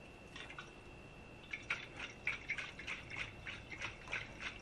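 Water sloshing and knocking inside a stainless steel Klean Kanteen Kid Classic bottle shaken upside down with its sports cap on, in a leak test. The quick, irregular sloshes, about four a second, begin about a second and a half in.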